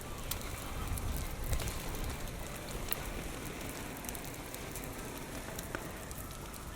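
Typhoon rain falling on surfaces, with many sharp drop ticks, over a low rumble of strong wind buffeting the microphone. The wind is strongest one to two seconds in.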